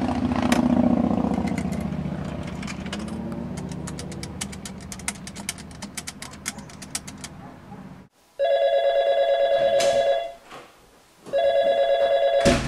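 A vehicle rumble swells and fades with a run of quick clicks over it, then a telephone rings twice, each ring a warbling tone about a second and a half long.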